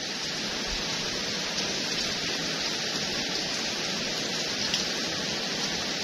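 Steady rushing noise of stormy weather, an even hiss with no single event standing out.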